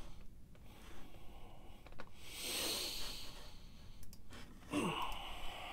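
Faint breathing from one person, with a brief airy exhale about halfway through, over low background hiss and a few small clicks.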